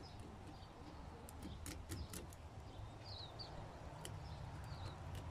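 Faint outdoor background: a low steady rumble, a few short bird chirps, and several light clicks spread through.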